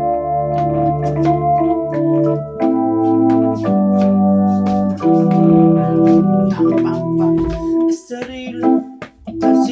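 Electronic keyboard in an organ voice playing held chords over a sustained bass line, with a steady percussive beat. About eight seconds in, the held chords stop and shorter, choppier notes follow.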